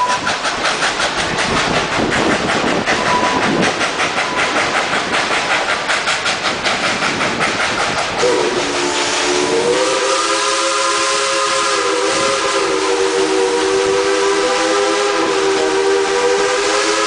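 Train wheels clacking rhythmically over the rail joints at speed, then about halfway through the locomotive sounds one long, loud multi-note whistle chord that is held to the end.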